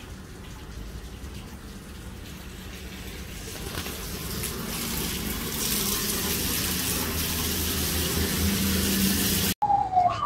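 Water running from a wall tap and splashing as a man washes at a row of ablution taps, growing louder about four seconds in and cutting off abruptly near the end.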